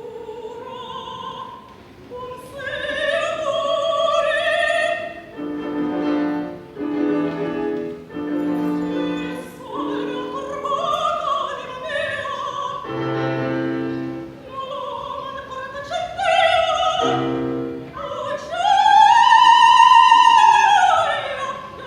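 Operatic soprano singing with piano accompaniment, her sung phrases alternating with short piano chords. It ends on its loudest moment, a long high note that rises and then falls.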